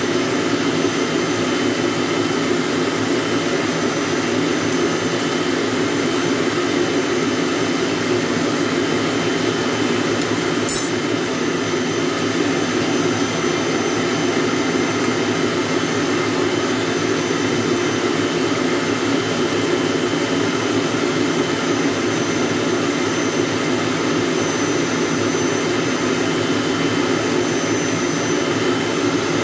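AEG electric stand mixer running steadily at constant speed, its motor and beater working a mixture in the steel bowl. A single short click comes about eleven seconds in.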